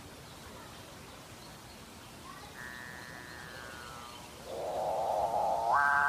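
Capuchinbird calling: a faint held note about halfway through, then a rough grating sound that swells near the end into a loud, held, foghorn-like call.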